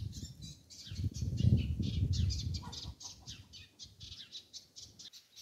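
Small birds chirping over and over, quick high calls. About a second in, a louder low rustle lasts a second or so.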